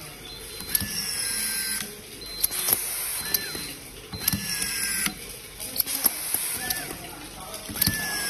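Handheld automatic screw-feeding screwdriver driving screws into plywood, cycle after cycle: each time the motor spins with a whine for up to about a second, with sharp clicks and a hiss from the feed. The cycles repeat every one to two seconds.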